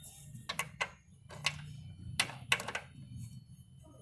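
Metal clicks and light knocks as the timing-belt gear is fitted onto the crankshaft nose: about six sharp taps, irregularly spaced, over a faint low steady hum.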